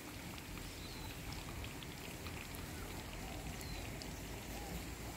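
Canal water with a light patter and small splashes over a steady low rumble.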